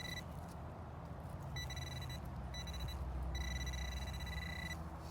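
Metal detector's steady high-pitched target tone sounding in on-off stretches: briefly at the start, for about half a second near two seconds in, and for over a second from about three and a half seconds in. It signals a metal target, here coins, in the dug hole. A low steady hum runs underneath.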